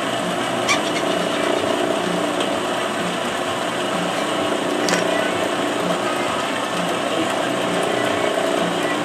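Metal-cutting bandsaw running and cutting through stacked aluminum bar: a steady mechanical hum with a low pulse roughly once a second and a couple of light clicks.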